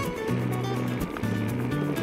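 Background music with a steady beat and a stepping bass line.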